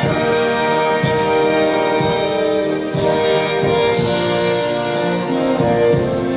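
Brass band playing slow, sustained chords.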